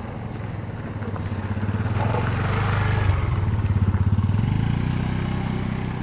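A small motor engine running with a low, steady note. It grows louder to a peak about three to four seconds in and then eases off, as a motor vehicle passes close by.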